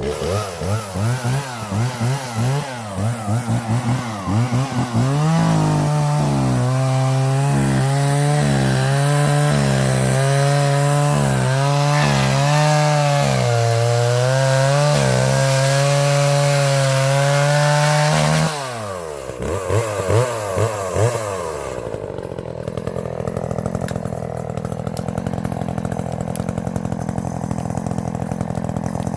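Gas chainsaw revved in short surges, then held at high revs for about thirteen seconds while cutting dead wood into firewood lengths. It then drops off, gets a few quick blips, and settles to idle.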